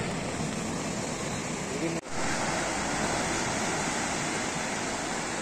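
Sea surf washing steadily onto the shore, an even rushing noise, cut off for an instant about two seconds in.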